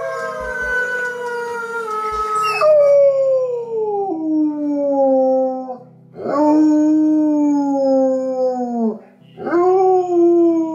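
German Shepherd howling: three long howls, each sliding down in pitch, with a short break for breath before the second and third. The howling is set off by wolf howls played from YouTube.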